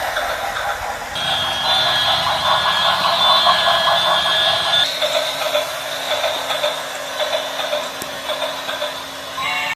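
Model train running on a miniature layout: a steady mechanical whirr and rattle with held high ringing tones, the mix changing abruptly about one second and five seconds in.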